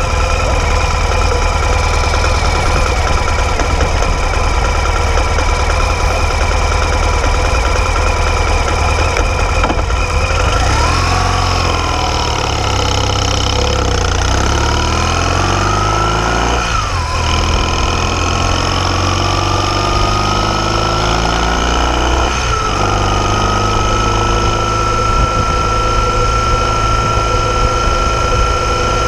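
BMW R 1200 GS boxer-twin engine running under way, heard from the rider's seat. It climbs in pitch as the bike accelerates, with gear changes about 17 and 22 seconds in, then settles into a steady cruise.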